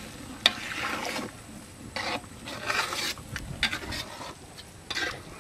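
Metal ladle stirring and scraping wet rice and lentil khichuri in a large metal pot, in short irregular scrapes with a sharp click about half a second in.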